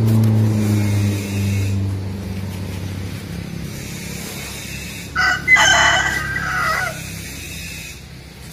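A rooster crowing once, about five seconds in, a short note then a long drawn call lasting nearly two seconds; it is the loudest sound here. Before it, a motor vehicle's low engine hum fades away over the first couple of seconds.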